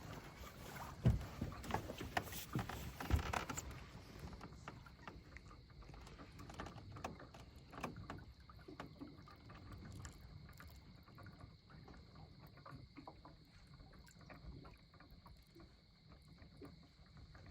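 Hollow knocks and thumps of people moving about in a fishing boat during the first few seconds, then faint steady river-water hiss with scattered small clicks of gear.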